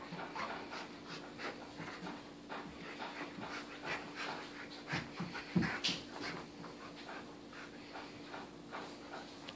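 English cream golden retriever panting, about two to three quick breaths a second, from the exertion of rough play with a plush toy. A thump comes about five and a half seconds in.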